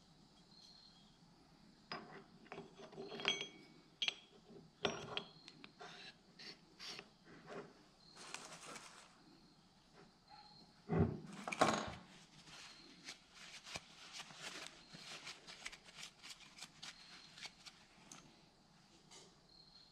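Metal clicks and clinks of a Skunk2 connecting rod and CP piston being handled and fitted together on a wooden bench. There is a brief metallic ring about three seconds in and two louder knocks about eleven seconds in.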